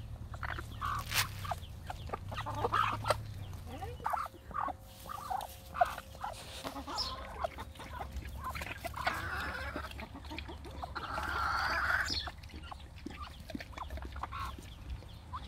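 Backyard hens clucking in a string of short calls, with a louder, noisier stretch about nine to twelve seconds in.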